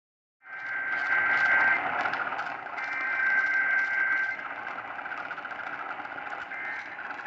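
EAS SAME header data bursts, a harsh two-tone digital warble, received through a weak, crackling radio signal. Two strong bursts about a second and a half long start half a second in, then fainter traces of the tones sit under steady static.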